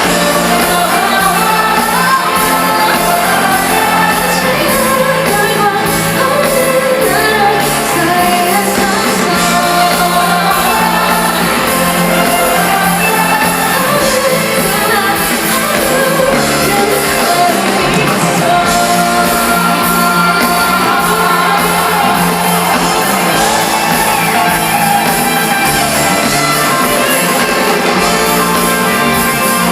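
Live pop-rock band performance with singing, echoing in a large concert hall, with shouts from the audience.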